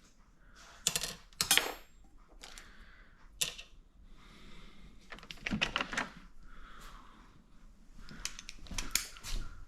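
Hand tools clicking and clinking on metal in about four short bursts of rapid clicks, as sockets are fitted to the motorcycle's 12 mm bolts.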